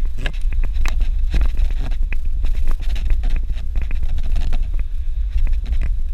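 A Suzuki Jimny driving over a rough dirt road: a steady low rumble with frequent irregular knocks and rattles.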